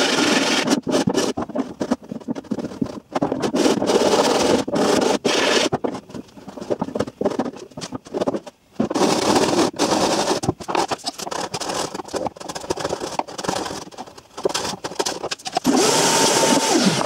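Hand sanding of a carbon fibre RC boat hull's cut-out to fit a jet pump: a long run of rough scraping strokes with short breaks between them. Near the end a vacuum cleaner runs briefly, its motor tone dropping as it shuts off.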